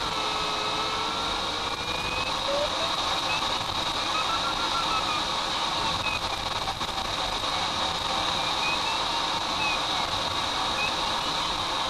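Air rushing past a glider's cockpit canopy as a steady hiss, with the audio variometer's tone sliding slowly up and down in pitch as the glider climbs and sinks along the ridge. A steady high whine runs underneath.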